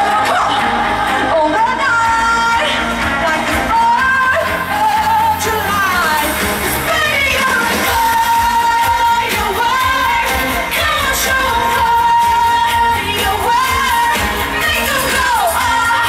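A woman singing a pop song live into a microphone over a full band, amplified through a large concert PA and recorded from within the audience. The sung melody wavers and holds notes over a dense, steady backing.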